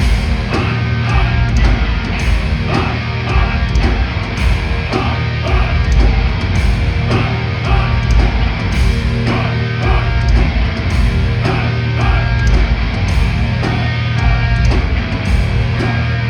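Live heavy metal band playing at full volume: distorted guitars, bass and pounding drums, with no vocals.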